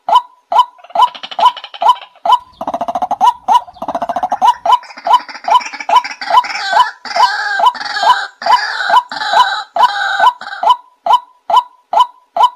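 White-breasted waterhen calling: a fast run of short, hooked notes, about two or three a second. About a second in it swells into a denser, harsher chorus of overlapping calls, then settles back to the single repeated notes near the end.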